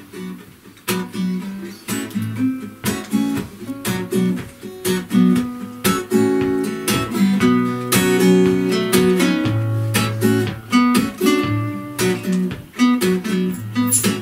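Two acoustic guitars playing together, strumming chords in a steady rhythm with ringing notes between the strokes.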